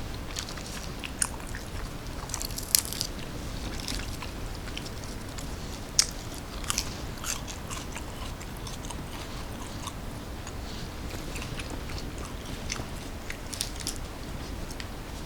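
Close-miked eating: a person biting and chewing a snack, with scattered sharp, crisp crunches.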